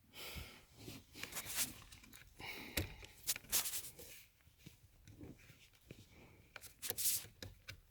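Flat-head screwdriver prying at a cover under a steering wheel: irregular clicks and short scrapes, with a few louder snaps around three and seven seconds in.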